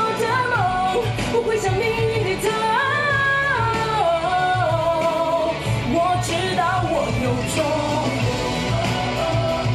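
A woman singing a pop-rock song into a studio microphone over a backing track with a steady beat, holding long notes with vibrato.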